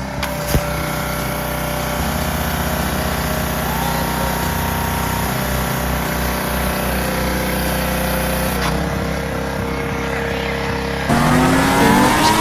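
Briggs and Stratton small engine on a pressure washer running steadily, its pitch shifting slightly a couple of times. Near the end a louder sound with gliding tones cuts in.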